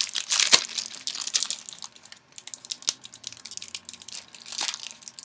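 Foil booster pack wrapper crinkling as it is torn open, densest in the first second and a half. After that come scattered light ticks and rustles as the cards are handled.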